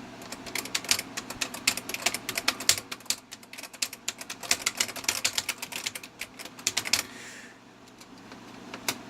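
Alton AL2000 keyboard being typed on rapidly, many quiet key presses a second with no click from the switches. The typing stops about seven seconds in, with one more key press near the end.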